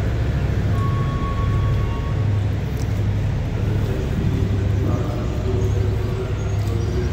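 Diesel train engine running at the station: a steady low drone. A short high tone sounds about a second in, and a higher pitched hum joins it from about five seconds.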